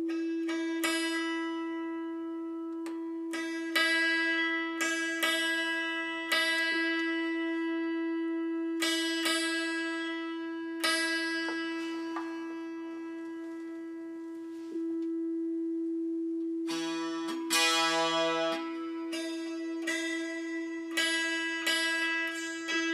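Santoor strings struck one at a time with a mallet, each note ringing and fading, over a steady, unbroken reference note looped through the studio speakers, while a course of strings is tuned by ear against it.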